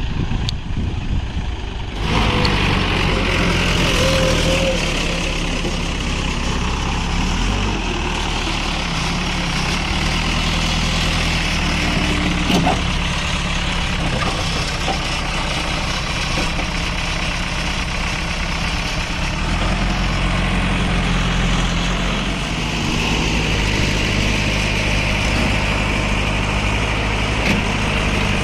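Heavy diesel engines of earth-moving machinery running steadily, their pitch shifting now and then as load and throttle change. The sound jumps louder about two seconds in, and there is a short sharp knock about twelve seconds in.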